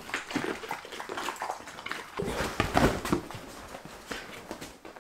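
Border collies eating dry kibble from bowls: a run of small crunches and clicks. About two seconds in, a louder second of rustling and thumping.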